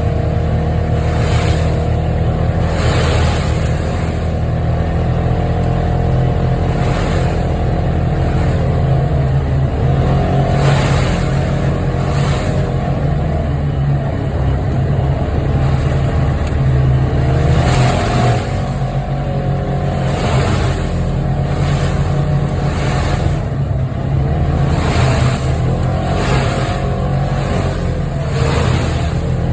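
Vehicle engine running under way, its pitch rising and falling as the throttle varies. A hiss pulses about once a second underneath.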